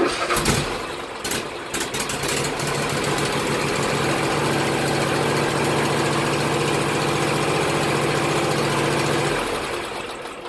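Husqvarna riding lawn mower engine started on the key with the choke pulled out, catching at once and running: uneven for the first few seconds, then steady, fading away near the end.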